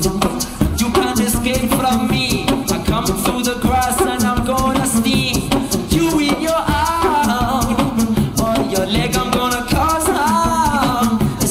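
Live-looped beatbox music for an improvised reggae-polka tune: layered vocal percussion with a fast shaker-like hi-hat, and a man singing a melody over it. Several notes slide up and over in arches, about six seconds in and again near the end.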